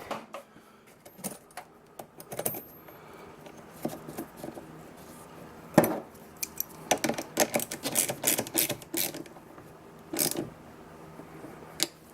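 Irregular metallic clicks and clatter of hand tools being handled, in scattered clusters, densest in the second half.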